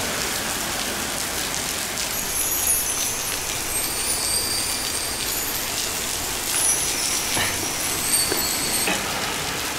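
Heavy rain pouring onto a wet street and pavement, a steady hiss, with a few short high-pitched chirps through the middle.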